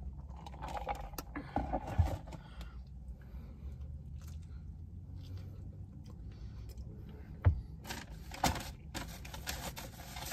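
Eating sounds: a drink sipped through a straw, then bites and chewing with small knocks and rustles from handling the food, over a low steady hum.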